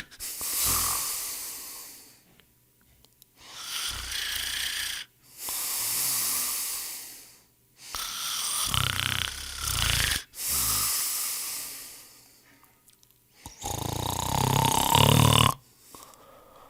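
A person snoring: airy, breathy breaths alternate with low rattling snores, about three of each. The last snore, near the end, is the loudest.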